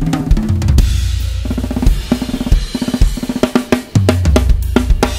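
Acoustic drum kit played in a busy groove with fills: rapid snare and tom strokes over bass drum and cymbals, the toms (8, 10, 12, 14 and 16 inch) fitted with newly changed heads for a new sound. Near the end the strokes stop and a low drum rings out and fades.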